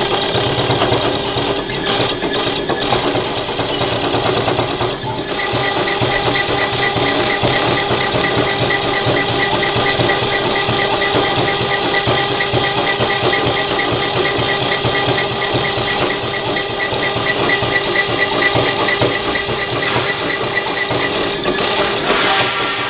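CNC router's spindle and drive motors running while the engraving bit mills a copper-clad printed circuit board: a loud, steady machine whine, with a faint high tone pulsing rapidly from about five seconds in until near the end.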